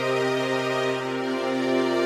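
Background music with slow, sustained held notes.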